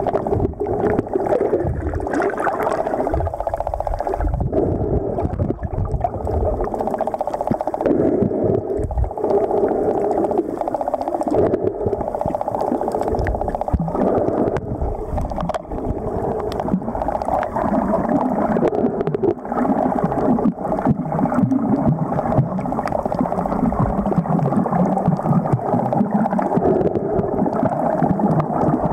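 Muffled underwater noise of water moving around a submerged camera: a steady rush with irregular low thumps.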